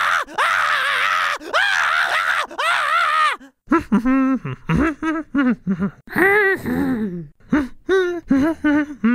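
A cartoon beaver character's high voice making wordless groans and strained noises. One long strained sound fills the first few seconds, then a run of short pitched grunts follows.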